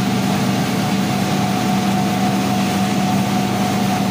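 Animal-feed pellet mill running steadily under load while pressing feed mash into pellets: a constant motor hum with a fainter higher tone over a broad grinding hiss.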